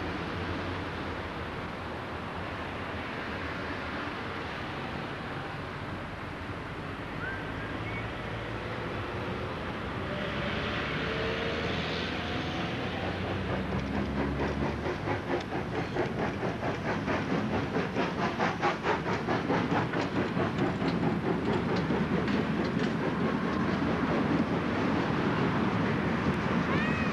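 Vintage steam locomotive working hard as it approaches and passes. A burst of steam hiss about ten seconds in is followed by its exhaust chuffing in an even rhythm that grows louder.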